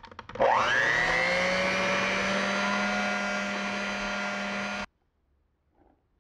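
Electric hand mixer starting with a rising whine as it spins up, then running steadily as its beaters mix an egg yolk into creamed butter in a glass bowl, and cutting off suddenly about five seconds in.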